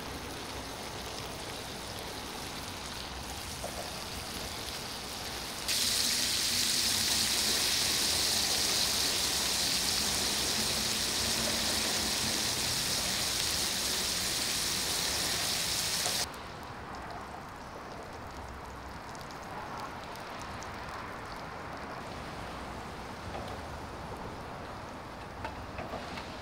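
Strips of pork belly sizzling in a griddle pan over a portable butane gas stove, a steady hiss of spitting fat. For about ten seconds in the middle the sizzle is much louder and brighter, starting and stopping abruptly. There are a few light clicks of a utensil on the pan near the end.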